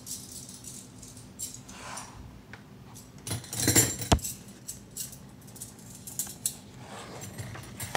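Handling noise as a phone camera is moved over a wooden table and a paperback picture book's page is turned: light scuffs and rustles, with a louder clatter and a sharp knock about four seconds in.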